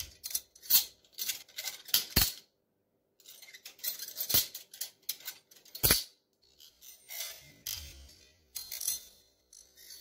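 Balisong bottle opener being flipped: its handles clack and click against each other in an irregular run of sharp clicks, a few of them loud knocks, with a short pause partway through.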